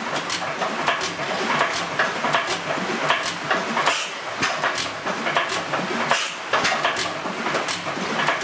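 Crossley Bros single-cylinder horizontal stationary engine running, with a rapid, uneven clatter of metallic clicks and knocks.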